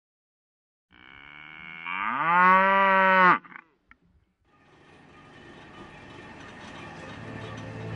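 A bull's long moo, rising in pitch and then held before it stops sharply. After a short pause, a wash of noise with a low hum slowly fades in and grows louder.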